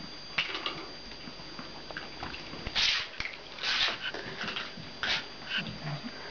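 Puppies sniffing and snuffling close to the microphone: short hissy puffs every second or so in the second half, with small clicks and taps before them.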